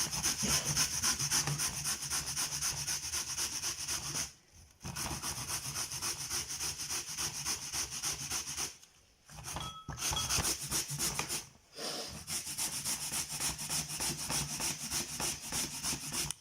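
Raw turnip being grated by hand on the fine side of a grater: quick, continuous rasping strokes, with brief pauses about four, nine and twelve seconds in.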